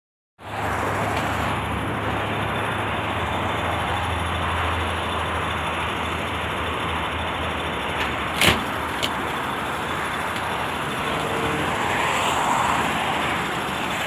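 Steady outdoor background noise with a low hum through the first half. A sharp click comes about eight and a half seconds in, with a smaller one just after.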